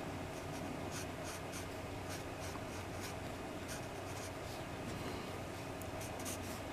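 Pencil sketching on paper: short, light scratchy strokes in irregular runs, over a faint steady hum.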